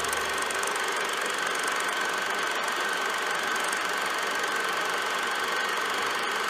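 Steady mechanical whirr and hiss with one unchanging high hum, an old film projector running as a sound effect. The last of the band's low notes fades out in the first second.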